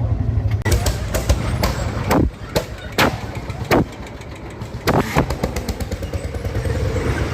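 Lanz Bulldog-type single-cylinder hot-bulb tractor engine, as in the Ursus C-45, running steadily, with about ten sharp exhaust bangs at irregular intervals, most of them in the first five seconds. The bangs come with flame from the exhaust.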